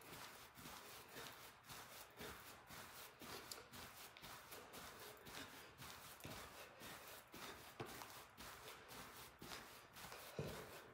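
Faint, rhythmic soft thuds of sneakered feet landing on artificial turf during cross jacks, about two a second.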